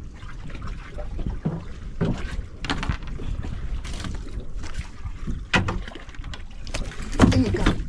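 Steady low rumble of an outrigger fishing boat at sea, with wind on the microphone and scattered knocks and splashes as a fishing line is worked over the side; a louder cluster of knocks near the end.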